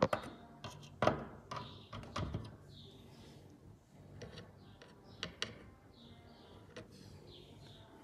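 A screwdriver prying at the plastic clips and handle latch of a Beko front-loader door, making sharp plastic clicks and knocks. The clicks come in a cluster over the first two seconds or so, then a few more about five seconds in and once near the end.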